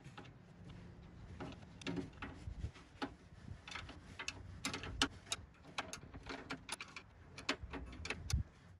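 Open-end wrench clicking and clinking against the nuts on a Ford Model A's radiator bracing rods as they are tightened: a string of light, irregular metal ticks.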